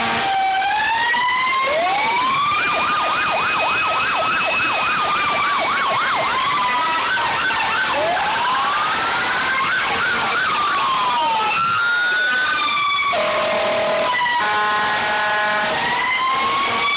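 Several fire engine sirens sounding at once, slow rising and falling wails overlapping with a fast yelp. Near the end a horn blasts steadily for a couple of seconds over the wails.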